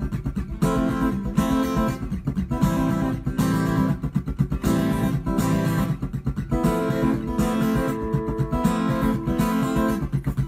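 Acoustic guitar strummed in a steady rhythm, an instrumental passage of a song with no singing.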